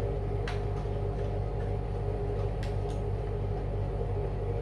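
A steady low electrical hum, with a few faint clicks about half a second in and near the middle.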